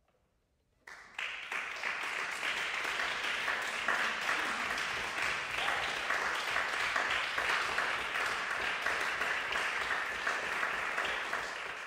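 Audience applauding, breaking out suddenly about a second in after a short silence and then going on steadily as the end of the performance is acknowledged.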